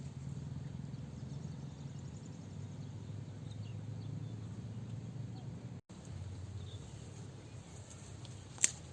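Outdoor ambience: faint insect and bird calls over a steady low rumble. The sound cuts out for an instant about six seconds in, and a single sharp click comes near the end.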